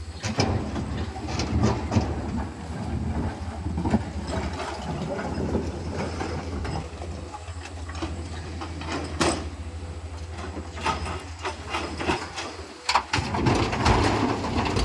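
Komatsu PC210LC-10 hydraulic excavator's diesel engine running steadily, with crushed stone (blue metal) clattering and knocking as it is loaded. A louder rush of stone comes near the end.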